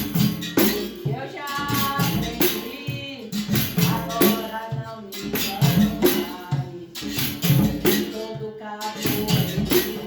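Capoeira music: a berimbau with rhythmic rattling percussion and a voice singing over a steady beat.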